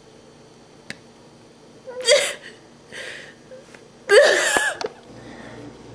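A woman sobbing: a short whimpering cry about two seconds in, a gasping breath, then a louder wailing cry that falls in pitch about four seconds in.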